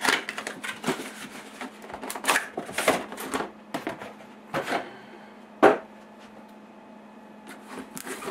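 Cardboard graphics-card packaging being handled: the box is slid out of its printed cardboard sleeve with rustling, scraping and several knocks of cardboard on a wooden desk, the loudest knock about five and a half seconds in. Quieter handling follows near the end.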